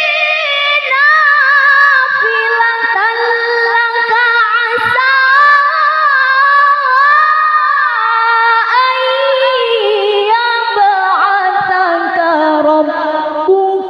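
A woman's amplified voice reciting the Quran in the melodic qori'ah style, a long, high, ornamented phrase with many fine turns of pitch, stepping lower near the end.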